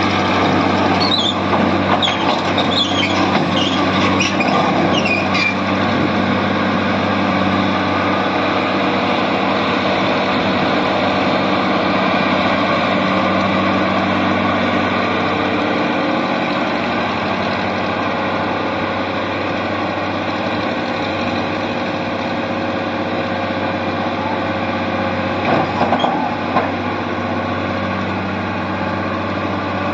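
Tata Hitachi 110 crawler excavator's diesel engine running steadily under hydraulic load as the machine climbs onto a trailer and works its boom. High squeals come in the first few seconds, and a short burst of clunks about 26 seconds in.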